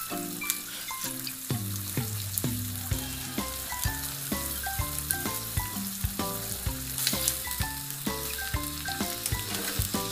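Scallops sizzling in oil in a frying pan, with a few scrapes of a spatula, under background music with a quick stepping melody and a bass line.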